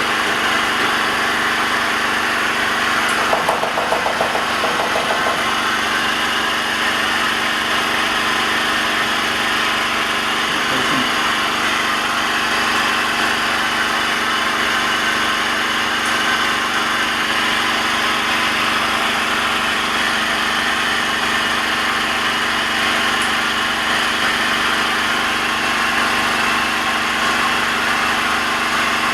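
A machine motor running steadily: an even, loud hum and whir, with a brief rattle a few seconds in.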